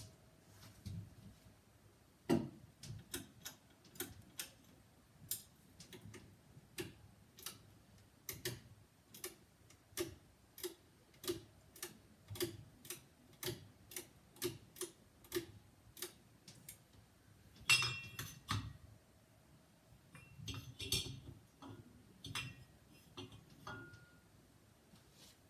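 Halsey GEV ceiling fan running with a repeated ticking, about two or three sharp ticks a second, broken by a short louder clatter about eighteen seconds in and again a few seconds later.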